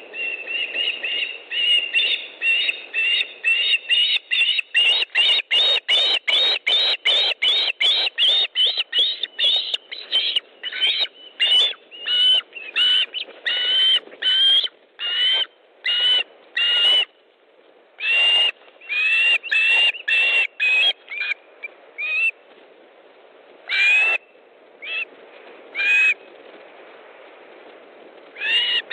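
Osprey calling at the nest as a fish is delivered: a fast run of short, high whistled notes, about three a second, that slows after about ten seconds into spaced calls and then a few single notes.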